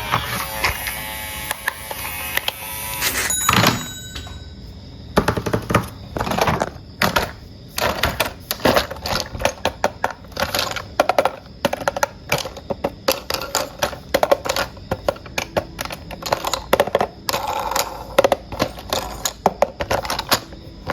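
Hard plastic toy parts handled, with many irregular clicks and clacks as pieces knock together. In the first few seconds there is a short electronic toy tone or jingle.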